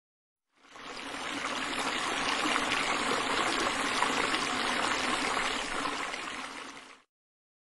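Water rushing and trickling: a steady hiss of flowing water that fades in about half a second in and fades out about a second before the end.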